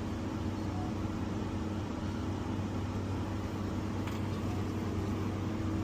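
Steady electrical and mechanical hum of vending machines' cooling units, holding two constant tones, one low and one higher, over a wash of background noise.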